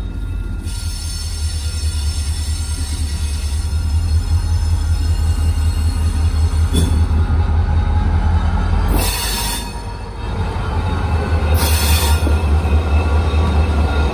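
Union Pacific GP40N diesel locomotive running light past at slow speed: a loud, steady low engine hum with steel wheels on the rail. A click sounds about halfway through, then two short bursts of high noise come about two and a half seconds apart as it passes.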